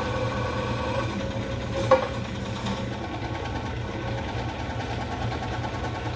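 Small lathe running steadily with a constant motor hum while it turns a harmonica ergo button being shaped by a cutting tool. One sharp click about two seconds in.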